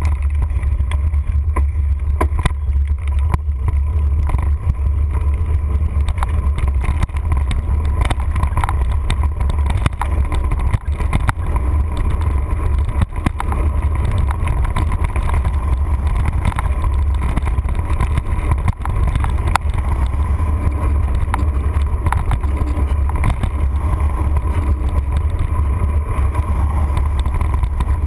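Mountain bike ridden along a dirt trail, heard through a camera on the handlebars: a steady low rumble of wind and trail vibration, with frequent clicks and rattles from the bike over the rough ground.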